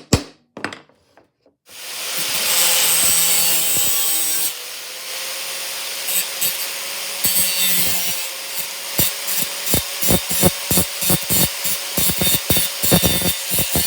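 A few sharp knocks, then a power grinder grinding off the protruding end of a steel roll pin. The grinding comes in loud and steady at first, then turns to a run of short repeated scrapes as the piece is pressed to the wheel again and again.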